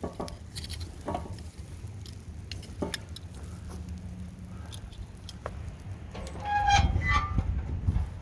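Scattered knocks and clicks of someone tending the fire in a barbecue smoker, with a short squeak about three-quarters of the way through and a low rumble that grows louder near the end.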